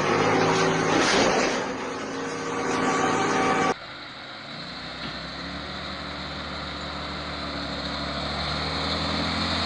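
A loud engine and machinery noise cuts off abruptly a little under four seconds in. It is followed by a Volkswagen dump truck's diesel engine running at a steady low pitch, growing slowly louder as the truck approaches.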